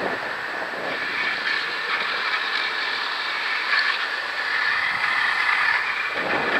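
Longboard wheels rolling fast over asphalt: a steady rolling noise, with wind on the microphone.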